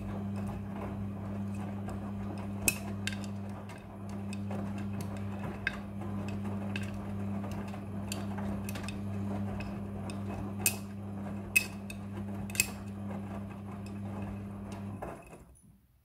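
Midea front-loading washing machine tumbling wet laundry: a steady motor hum with the drum's swish, and scattered sharp clinks of metal buttons knocking on the drum, a handful of them louder. The drum stops about fifteen seconds in.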